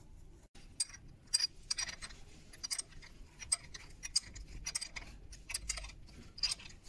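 A steel coach screw being wound by hand and spanner into a wooden pedestal hole packed with glued wooden coffee stirrer sticks: a run of irregular clicks and small creaks as the thread bites into the sticks. The sticks and glue are there to form a new thread in a hole that the screw would otherwise drop into.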